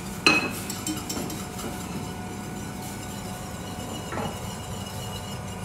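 A whisk striking the side of a metal saucepan with a sharp ringing clink just after the start, then softer whisking with light taps and another knock about four seconds in, as roux is whisked into boiling stock to thicken it.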